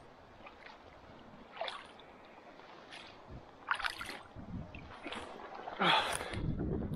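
Footsteps and rustling on a grassy, leaf-strewn lakeshore bank: about half a dozen irregular scuffs and thumps, the loudest about six seconds in.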